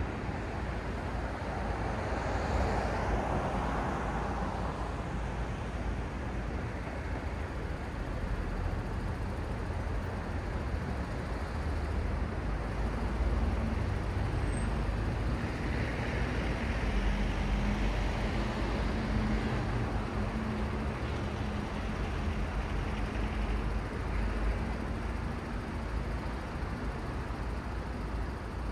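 Road traffic at a city intersection: a steady wash of tyre and engine noise, with vehicles passing louder a few seconds in and again past the middle. A low engine drone holds through the middle stretch.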